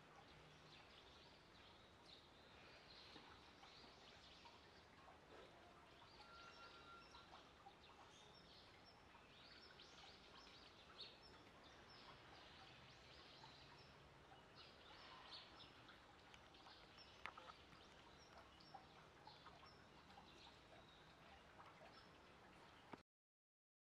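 Near silence: faint outdoor ambience with scattered short bird chirps. The sound cuts off suddenly near the end.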